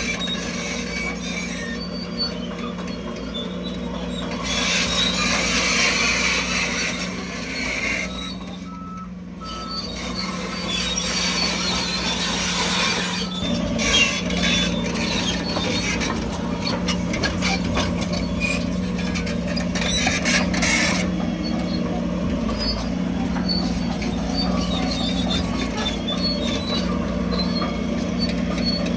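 Heavy earthmoving machinery with its diesel engine running steadily and high-pitched squealing over it. In the middle there is a run of rapid metallic clanks.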